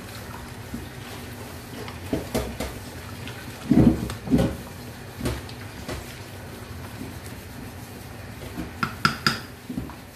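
Wooden spatula stirring thick rice porridge in a metal pot, scraping and knocking against the pot with scattered strokes and a few sharp taps near the end, over a steady low hum.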